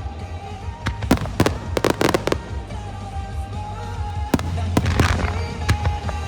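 Starmine fireworks bursting in quick clusters of sharp bangs and crackles, with music played over loudspeakers to accompany the show.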